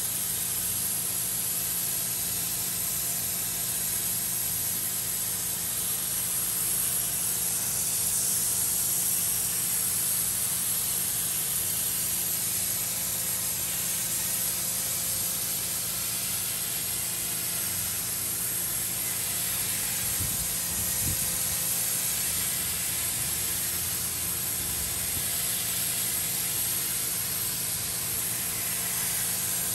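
Pressure washer spraying a jet of water onto a carpeted floor mat: a continuous hiss of spray with a steady hum of the machine under it.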